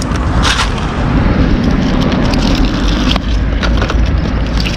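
Heavy wind rumble buffeting the microphone, with a few sharp metallic clicks of coins and small iron bits clinking on a magnet, the clearest about half a second in.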